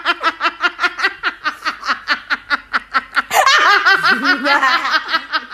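A person laughing hard and uncontrollably in rapid 'ha-ha' pulses, about six a second, with a fresh, higher-pitched burst of laughter about three seconds in.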